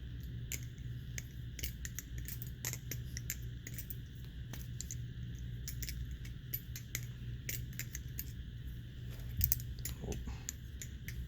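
Balisong (butterfly knife) being flipped: irregular sharp metallic clicks and clacks of the handles and blade swinging on their pivots, over a low steady hum.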